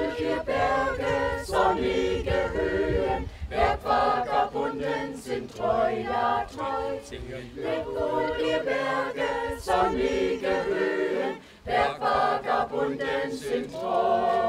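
Small mixed choir of women's and men's voices singing a cappella, in phrases broken by brief pauses for breath.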